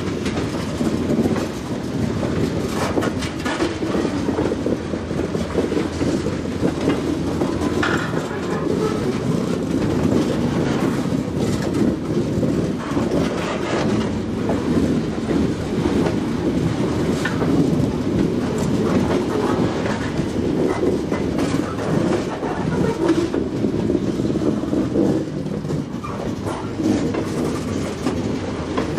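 Freight train moving slowly past, its railcar wheels clacking over the rail joints while the diesel locomotives run.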